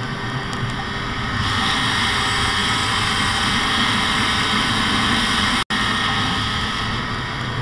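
Arctic Cat two-stroke snowmobile running at speed, engine drone mixed with wind rushing over the microphone, heard from the rider's seat. It grows louder about a second and a half in, and the sound drops out for an instant near the end.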